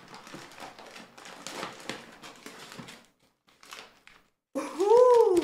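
Faint rustling of a paper grocery bag and a plastic snack bag as a bag of pumpkin seeds is taken out. Near the end comes a woman's loud drawn-out 'ooh', rising and then falling in pitch.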